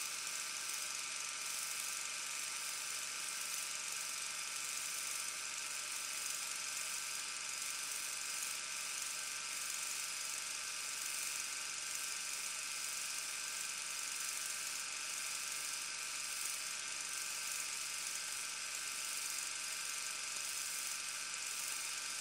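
Steady hiss with a faint, even hum underneath and nothing else happening: background noise under a silent film transfer.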